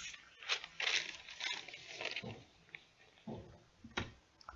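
Sheets of parchment paper being handled and laid over a print on a heat press platen: short bouts of paper rustling and crinkling, with a sharp click about four seconds in.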